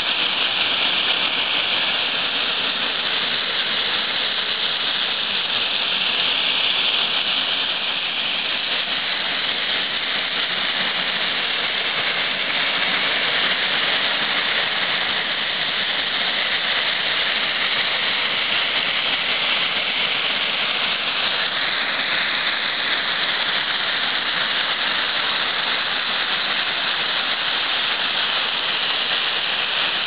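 Water pouring down a partly frozen waterfall, a steady rush with no change in level.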